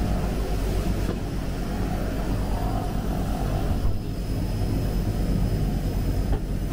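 Turboprop engine and propeller of a de Havilland Canada DHC-6 Twin Otter floatplane running steadily as it taxis on the water, heard as a low drone from inside the cabin.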